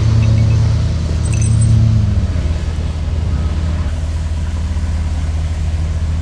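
Excavator engine idling steadily, its note easing down about two seconds in, with a few light metal clinks from the bucket coupling being worked.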